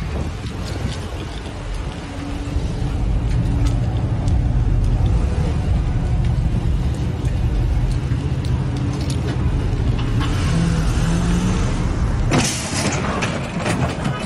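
An SUV's engine running under power as it drives off, a heavy low rumble that strengthens about two seconds in. Near the end there is a brief harsh scraping noise as the SUV pushes into a parked pickup truck.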